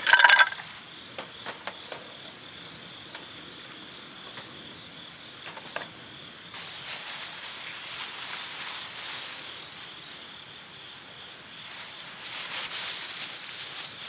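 Insects calling in a steady high trill throughout. A loud rustle right at the start, a few light clicks, and from about halfway on, continuous rustling of things being handled.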